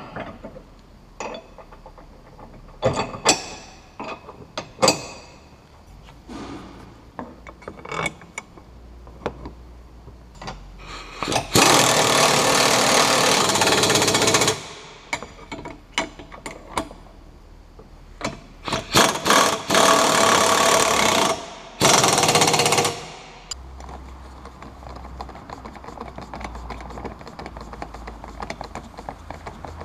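Scattered metallic clicks and knocks of hand work on a tow bar's socket bracket, then a power tool running in three loud bursts of about three, two and one seconds as the bracket bolts are driven in.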